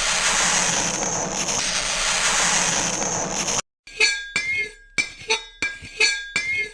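A steady hiss for about three and a half seconds that cuts off suddenly. After a short gap comes a quick run of sharp clinks, about three a second, each ringing briefly with a bright tone.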